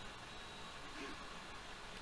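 Quiet room tone: a faint, steady hiss, with only a very faint soft sound about a second in.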